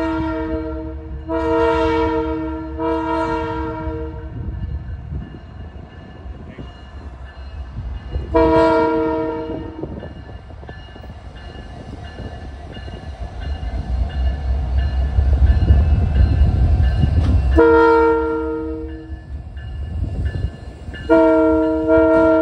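Canadian Pacific diesel locomotive sounding its multi-chime air horn in a series of blasts: a pair right at the start, one about eight seconds in, and two more near the end. Between the blasts the engine's low rumble grows loudest as the locomotive draws close, about fifteen seconds in.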